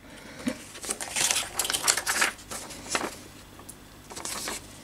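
Paper and thin card rustling as flyers and a printed sheet are handled, in irregular crinkling bursts, the longest about a second in.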